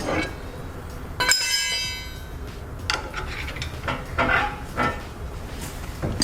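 Hammer striking steel suspension parts: one sharp blow about a second in that rings for about a second, followed by a few lighter metal clanks, as the stuck hub and knuckle are knocked free.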